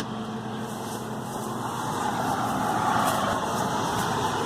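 Yamaha EF4500iSE inverter generator running steadily under the load of an RV air conditioner and refrigerators, with road traffic from a nearby highway swelling as a vehicle passes.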